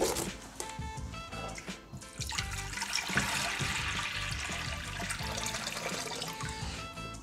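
Water poured from a plastic jug into a reptile's water bowl, a steady splashing that starts about two seconds in and runs until near the end, over background music.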